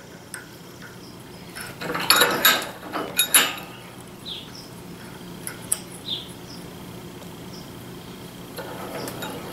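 Metallic clinks and rattles from a steel nail and thin resistance wire being set and clamped in a steel bench vise, loudest in a cluster about two to three and a half seconds in.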